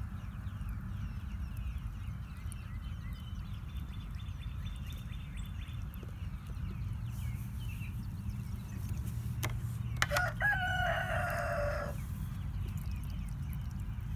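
A rooster crows once, about ten seconds in, a pitched call of about a second and a half that falls at its end, over a steady low rumble.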